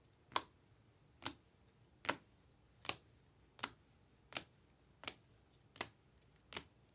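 Steady ticking: about nine short, sharp clicks, one roughly every three-quarters of a second.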